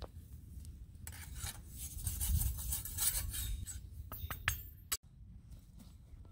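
Repeated rasping scrapes across a rough brick or stone, in quick back-and-forth strokes, stopping abruptly about five seconds in.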